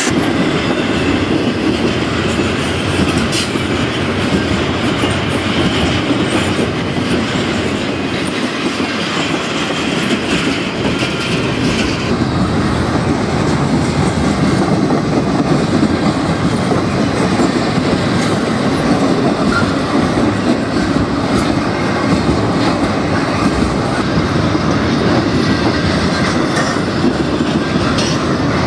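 Double-stack intermodal freight train's well cars rolling past close by, a steady loud rumble with the rhythmic clickety-clack of wheels over rail joints. A high hiss rides over it for the first twelve seconds and then stops suddenly.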